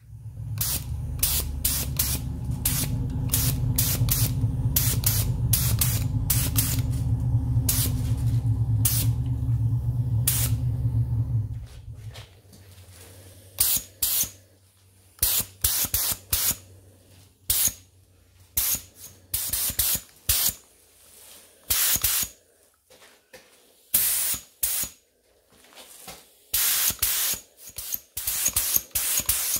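Paint spraying onto the cast-iron frame of a hand knife grinder in many short hissing bursts. For about the first twelve seconds a motor hums steadily underneath, then cuts off suddenly, leaving only the bursts.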